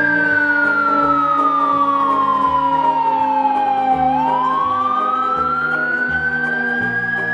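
A siren wailing slowly: its pitch falls steadily for about four seconds, then sweeps back up.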